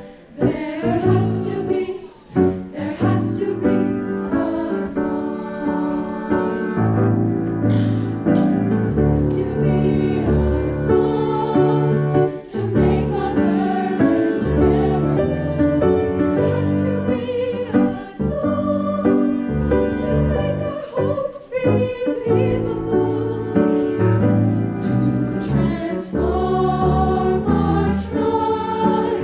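Treble choir of young women's voices singing a sustained, multi-part choral piece, with short breaks between phrases.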